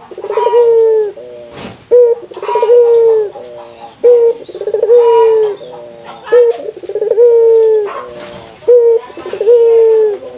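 Barbary dove (burung puter) cooing over and over, about five times, roughly one every two seconds. Each call is a short opening note followed by a long, rolling, slightly falling coo.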